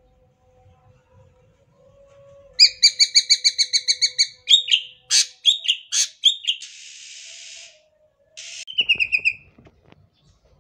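Cucak ijo (green leafbird) singing loudly, starting a couple of seconds in: a fast trill of rapidly repeated notes, the 'tembakan' (shooting) style prized by keepers, then a few sharp separate notes, a harsh rasping note, and a second short trill near the end.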